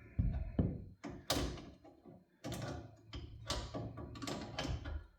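Adjustable wrenches knocking, clinking and scraping against the nuts and metal rail of a garage door opener's chain-tensioning bolt, in a string of irregular sharp knocks as the nuts are worked loose.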